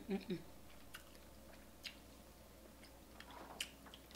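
Close, quiet eating sounds of a person chewing crab meat: soft wet chewing with a few sharp clicks spread through.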